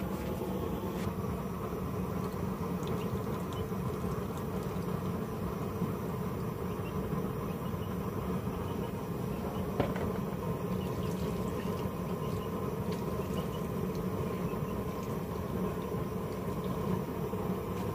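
Homemade stove burning used oil, running with a steady low noise, with one faint click about ten seconds in.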